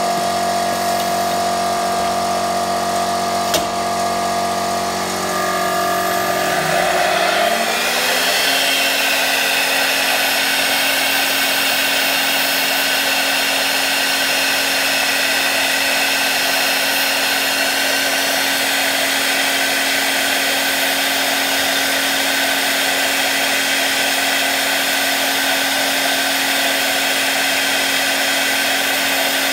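CNC milling spindle running with a steady whine, with a single click about three and a half seconds in. About seven seconds in its pitch rises as the spindle speeds up. It then runs steadily at the higher speed, with more hiss, as the end mill cuts a piece of reed cane.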